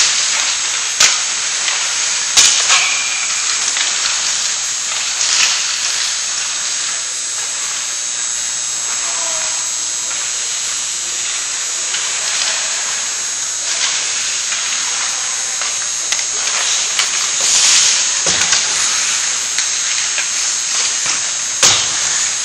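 Ice hockey pickup game: skate blades scraping the ice with a steady hiss, broken by several sharp clacks of sticks and pucks striking.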